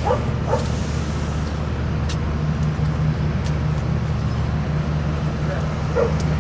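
Steady low hum of an idling motor vehicle engine, with a few faint clicks.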